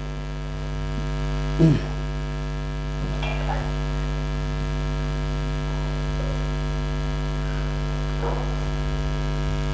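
Steady electrical mains hum with a stack of overtones, unchanging throughout. Just under two seconds in, a man's voice gives a brief falling call, and a few faint short sounds follow later.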